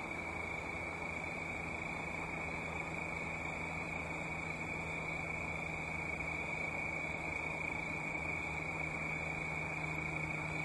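Crickets trilling in one steady, unbroken high drone, with a faint low hum underneath.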